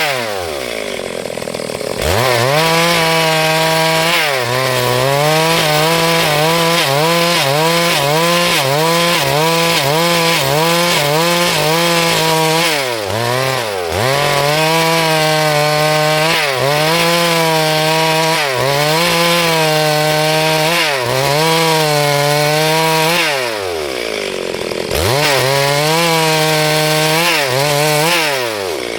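Stihl MS382 two-stroke chainsaw cutting along a hardwood log at full throttle, its pitch wavering as the chain bites. The engine drops off and revs back up several times, about thirteen seconds in, around twenty-four seconds, and near the end.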